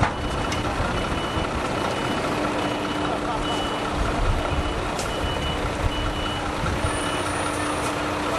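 Lorry's reversing alarm beeping at an even pace, a little under two beeps a second, over its engine's steady running; the beeping stops near the end.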